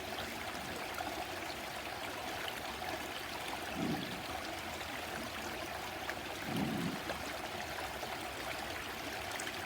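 A stream running steadily over rocks, an even rushing and trickling of water, with two brief soft low sounds about four and six and a half seconds in.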